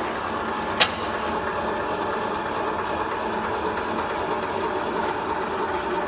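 Steelmaster SM-SLC-20 button punch snap lock roll former running, its nine-station rolls forming a galvanized steel strip into the female snap lock profile: steady machine noise, with one sharp click just under a second in.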